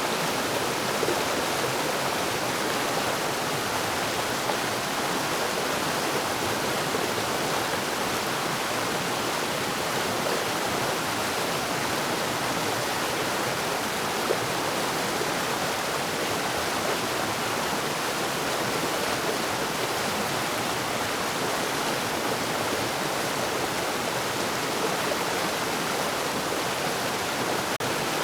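Forest waterfall: water falling and rushing over rocks in a steady, even roar.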